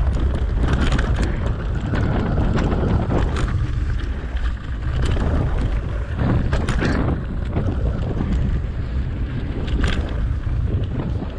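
Wind buffeting the action camera's microphone as a mountain bike rides a dirt forest trail, with scattered sharp clicks and rattles from the bike jolting over the bumpy ground.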